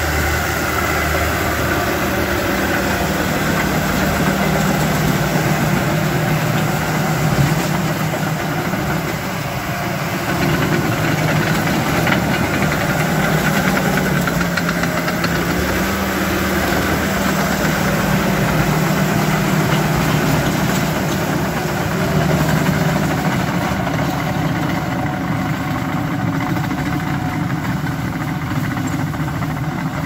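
John Deere 450J crawler dozer's diesel engine running steadily as the machine moves, its pitch shifting a little.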